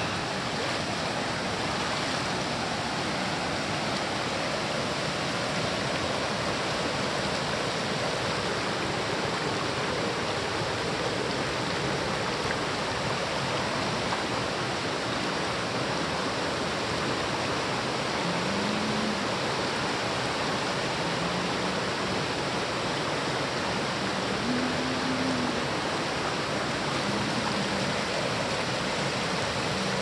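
Mountain stream rushing over rocks: a steady, even rush of flowing water.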